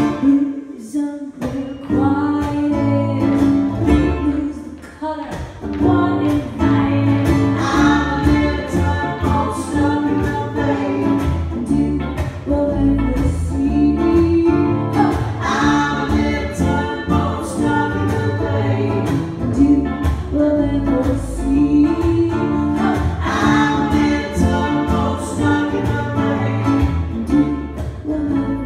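Live acoustic band playing: ukulele and guitar strummed over a double bass, with singing coming in about six seconds in.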